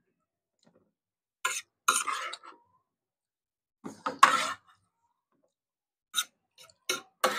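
A metal fork scraping and clinking against a plate in about six short bursts, the loudest about four seconds in.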